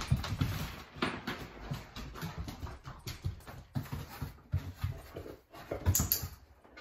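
A dog moving about on and around a low training platform: its paws and claws pattering and tapping on the floor and platform in irregular steps, with a louder knock near the end as it steps back up.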